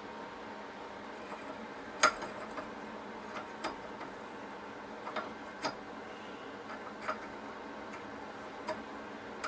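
Light, irregular metal clicks and taps from a ring spanner and a loosened, heat-freed rusty nut being worked on a part clamped in a steel bench vise, about ten in all. The loudest comes about two seconds in, over a steady low hiss.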